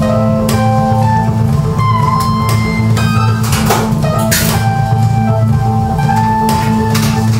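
Keyboard solo played live on a Yamaha synthesizer, a moving melody over a steady bass line with drum accompaniment and regular cymbal strikes.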